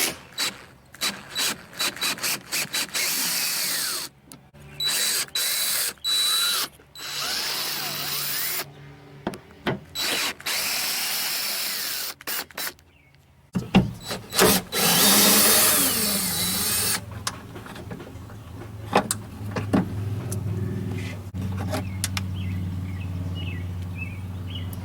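Power drill with a Torx bit backing out the screws that hold a Ford Ranger rear door's upper latch. It runs in many short trigger bursts, with a few longer runs, the longest about three seconds around the middle.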